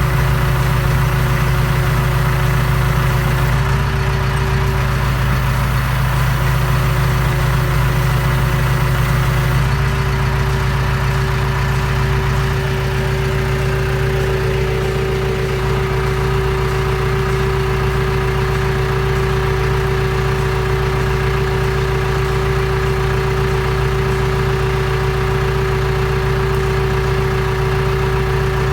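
Tractor engine running steadily, its pitch stepping slightly a few seconds in and again about ten seconds in.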